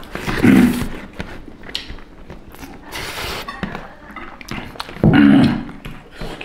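Eating by hand at a table: chewing and mouth noises with small clicks and taps of hands and food on plates. Two short, loud vocal noises come about half a second in and again about five seconds in.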